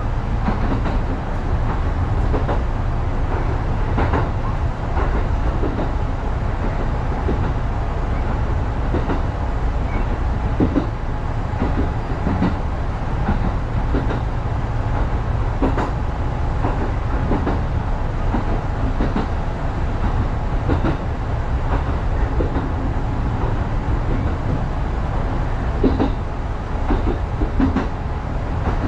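Electric commuter train running along single track, heard from inside the front car: a steady low rumble from the running gear, with irregular clicks and knocks from the wheels on the track.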